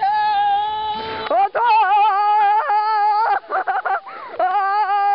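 Girls' long, high-pitched yells with a wavering pitch, war-whoop style, as they charge; the yelling breaks off briefly about a second and a half in and again near three and a half seconds, then starts up again.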